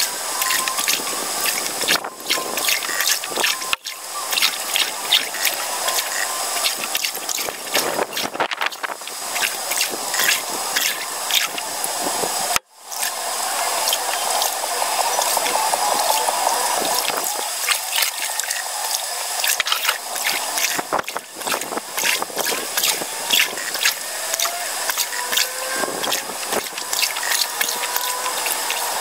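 Canoe paddle strokes dipping and pulling through creek water, with splashing and dripping, over a dense crackle of fine clicks. The sound breaks off briefly a few times, most sharply about halfway through.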